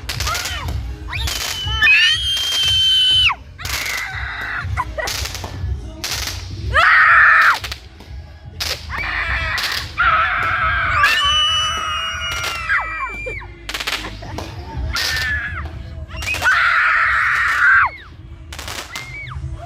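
Fireworks going off: repeated sharp bangs and crackles, with several high whistling tones that each hold for a second or two and then drop away.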